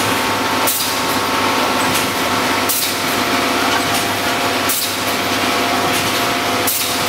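HMK1600 corner-spout doypack packaging machine running: a steady motor hum with a short hiss of air about every two seconds, four times, as its pneumatic cylinders cycle.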